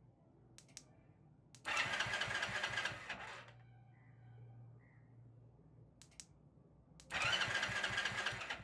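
Motorcycle's electric self-starter cranking the engine twice, each time for about a second and a half, with a sharp click just before each. The cranks are triggered through the anti-theft alarm's remote self-start, a sign that the alarm's starter-relay wiring is working.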